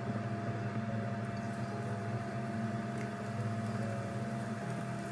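A steady machine hum, with the soft wet squish of a spoon stirring thick vegetable fritter batter in a stainless steel bowl and a couple of light clicks.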